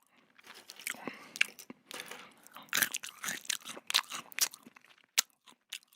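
Someone chewing crunchy food close to the microphone: an irregular run of crisp crunches that grows denser and louder through the middle, then thins to a few last crunches near the end.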